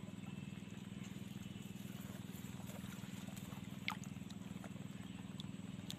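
Steady low drone, like a small engine running in the distance, with a single short sharp chirp about four seconds in.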